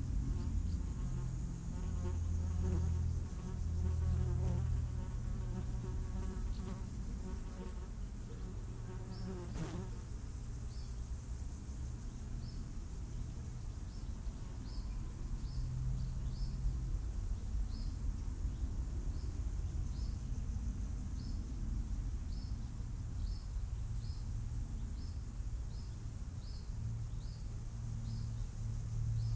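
A flying insect buzzing close by, its drone swelling and fading over the first several seconds. In the second half, short high chirps repeat about once or twice a second over a steady low hum.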